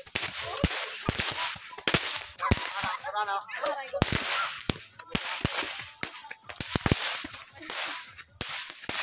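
Handheld roman candle tubes firing into the night sky: a run of sharp pops and bangs at irregular intervals, about two a second.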